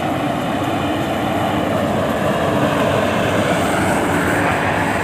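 Rice combine harvester running steadily as it harvests, its engine and threshing machinery giving a loud, even hum.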